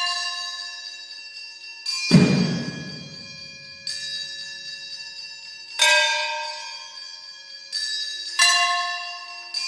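Struck metal percussion, ringing with bell-like overtones: a hit about every two seconds, each one dying away slowly. The hit about two seconds in has a deep thud under it.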